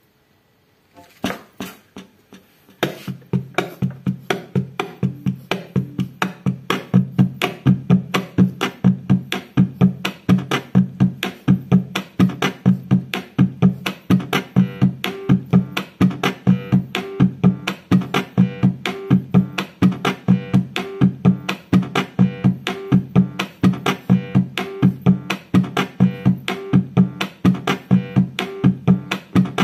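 Instrumental music with a steady, fast beat: a few soft hits about a second in, then the full beat from about three seconds in.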